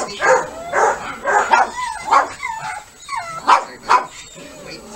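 Dog barking again and again, roughly two barks a second, with high wavering yelps and whines between the barks around the middle.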